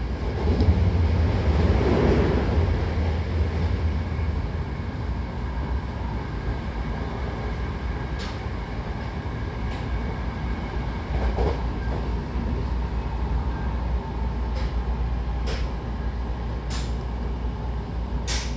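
Hankyu commuter train running, heard from inside the passenger car: a steady low rumble of wheels on track that swells in the first few seconds, with a few sharp clicks in the second half.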